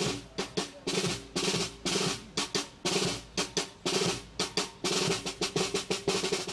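Snare and bass drums of a military band playing a rhythmic march cadence with rolls.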